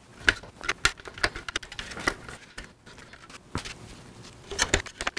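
Plastic speaker grilles being handled and pressed back onto a Can-Am Spyder F3 Limited plastic console: a run of irregular clicks and knocks as the parts are set in place.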